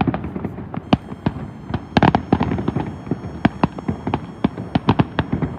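Fireworks going off in a rapid, irregular barrage of bangs, several a second, with a denser cluster of bursts about two seconds in.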